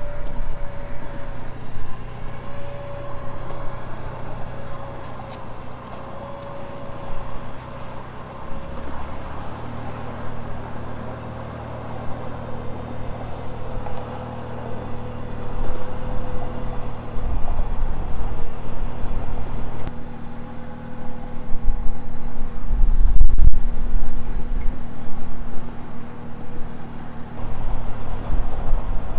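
Warn Zeon 10-S electric winch motor whining steadily under load as it hauls on the cable, its pitch wavering slightly, over the low hum of a running truck engine. A louder low rumble comes in twice in the second half.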